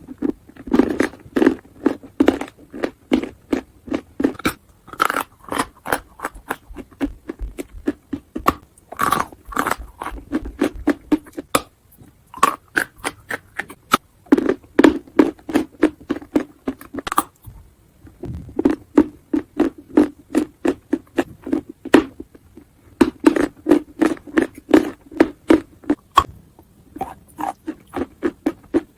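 Chalk being bitten and chewed close to the microphone: quick, regular crunches in long runs, broken by a few short pauses.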